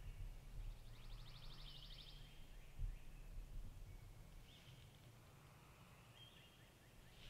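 Faint songbird calls in the woods: a rapid, even trill about a second in, then a couple of short high notes later, over a low rumble.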